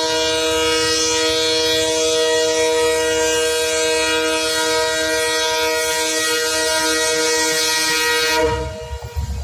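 WDP 4D diesel locomotive's air horn sounding one long, steady blast of several notes at once, cut off about eight and a half seconds in, leaving a low rumble.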